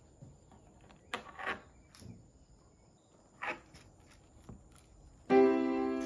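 A few soft handling sounds, light rustles and knocks, as a zippered leather key case is picked up and turned over in the hands. About five seconds in, piano music starts and is the loudest sound.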